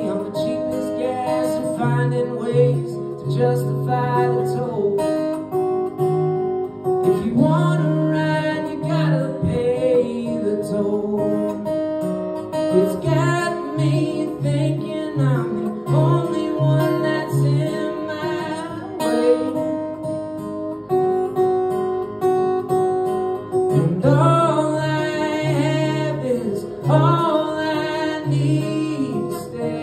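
Solo acoustic guitar played live, strummed and picked in a steady pattern, with a man singing over it at times.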